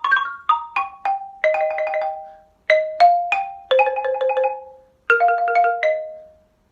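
Xylophone struck with mallets in quick runs of ringing notes, arpeggiating the dominant-seventh chords of a ragtime progression in A flat. It plays in short phrases with two brief pauses.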